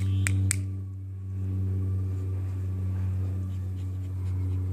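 A steady low droning hum with two sharp clicks about half a second in.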